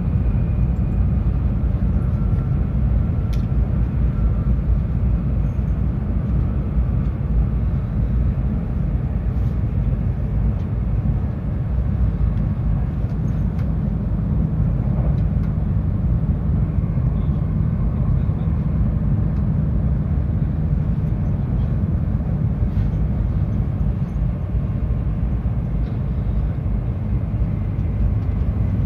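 Tohoku Shinkansen bullet train running, heard on board as a steady low rumble.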